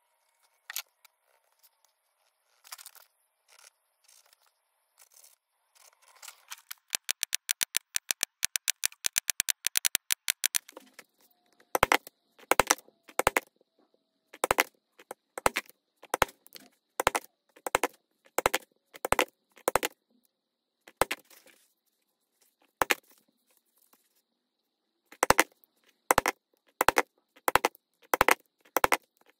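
Repeated sharp knocks from hand work on a workbench: a few scattered ones, then a fast even run of about eleven a second lasting some three seconds, then single strikes about every half second in groups with short pauses.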